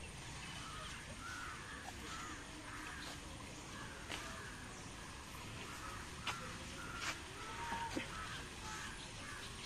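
Crows cawing repeatedly over a steady outdoor background, with a few sharp clicks.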